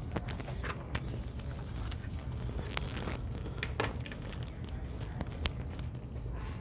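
Scattered light clicks and clinks of small objects being handled on a desk, the sharpest about three seconds in, over a low steady hum.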